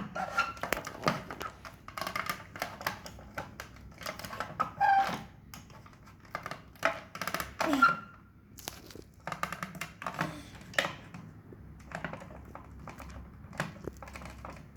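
Plastic play-doh tools clicking, tapping and scraping against containers and the table in an irregular run while play-doh is scooped out.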